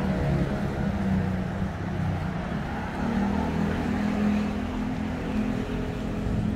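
Street traffic with a vehicle engine running, a steady low hum over road noise.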